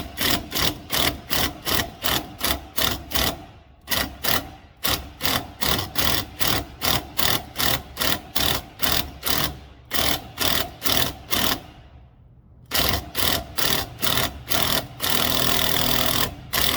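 Impact wrench hammering in quick pulses, about three to four a second, driving the nut of a bushing removal tool to press an old control-arm bushing out of a Ford 8.8 axle housing. It stops briefly twice and near the end hammers without a break.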